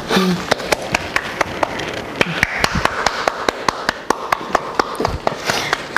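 A quick, even run of sharp taps, about five a second.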